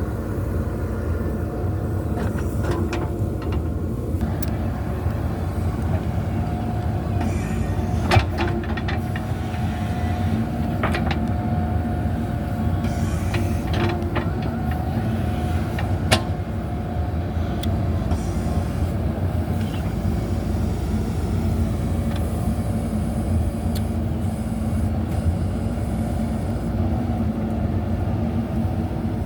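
JCB backhoe loader's diesel engine running steadily under work, with a few sharp clanks, the loudest about eight seconds in and another about halfway.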